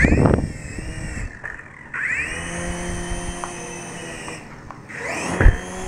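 Small electric motors and rotors of a toy RC helicopter whining, spinning up about two seconds in, holding steady, dropping away briefly and revving up again. A loud clatter at the start and a sharp thump near the end.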